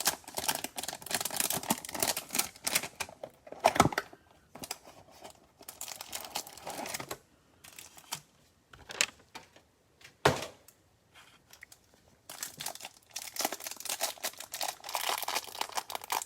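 Trading card box packaging being torn open, crinkling and tearing in spells, with a couple of knocks near 4 and 10 seconds as boxes or packs are handled.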